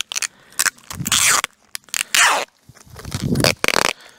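Adhesive tape pulled off its roll in three or four noisy, zipping strips, each about half a second long, as it is wound around a stack of soap bars.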